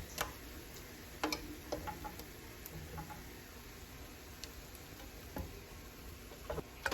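Cooking utensils tapping and clicking against cookware: a few scattered light clicks over a low steady hum.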